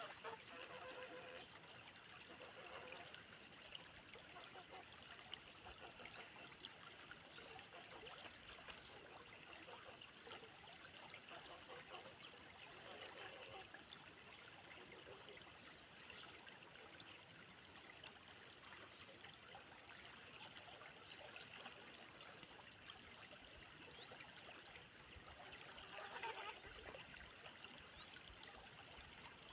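A river flowing: a faint, steady rush of water with small irregular splashes, a little louder about 26 seconds in.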